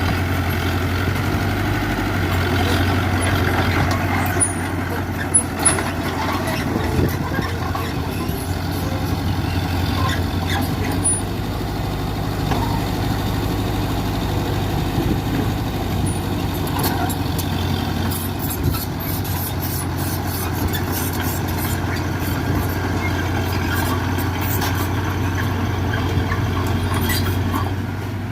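Heavy diesel engine of earthmoving machinery running steadily, with a few short knocks or clanks.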